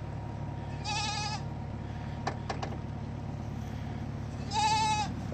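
Goats bleating twice, each a short quavering call about half a second long, one about a second in and one near the end, with a few light clicks between them over a steady low hum.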